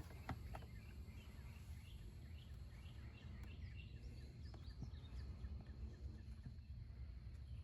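Faint outdoor background with a small bird giving a run of quick, high chirps, over a steady low rumble; a few light clicks near the start.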